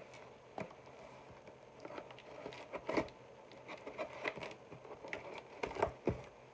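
A cardboard shipping box being opened by hand, with scissors worked along the taped seams and the flaps folded back, giving irregular scrapes, rustles and light taps of cardboard. A few sharper knocks come about three seconds in and again near the end.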